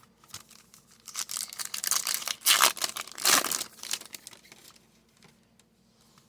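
A foil trading-card pack wrapper being torn open and crinkled, in a run of crackling from about a second in, loudest in the middle, dying away before the end.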